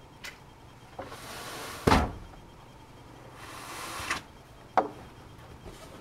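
Bed linens being handled on a hospital bed: two spells of rustling and swishing cloth, with a loud thump about two seconds in and a sharper knock near five seconds.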